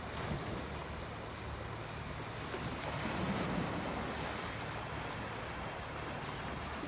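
Sea waves washing steadily, with a slightly louder surge about three seconds in.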